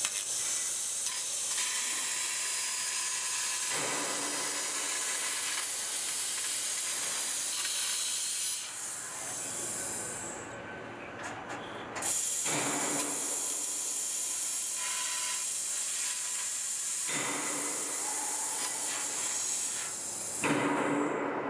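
Fiber laser tube cutting machine cutting steel channel: a steady hiss from the cutting head's gas jet and spraying sparks. It cuts out for a couple of seconds about halfway through, then starts again.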